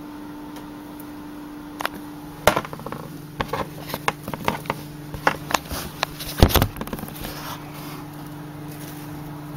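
Irregular clicks and knocks from close handling, loudest about six and a half seconds in, over a steady low hum that drops in pitch about two and a half seconds in.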